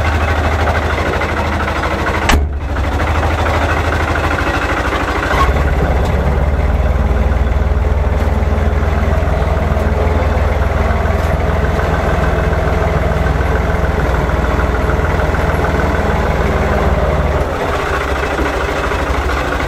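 Tractor engine running steadily while it packs down deep snow, a low engine drone. It dips briefly about two seconds in, runs harder and louder from about five seconds in, and eases off near the end.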